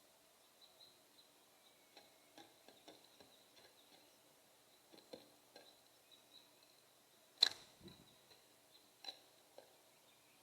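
Scattered faint clicks and light taps of birds at a seed feeder, with one sharper, louder knock a little past seven seconds in.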